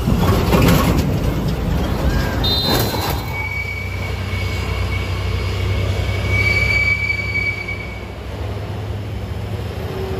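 Heavy road traffic on a steep descent: a loaded truck rumbling past close by for the first few seconds, then a steady low engine hum with a high, thin brake squeal lasting several seconds.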